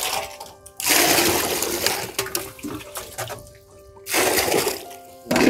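Water poured from a mug into a bucket in two gushes, one about a second in and another after about four seconds, splashing as it lands, with a short sharp knock at the very end.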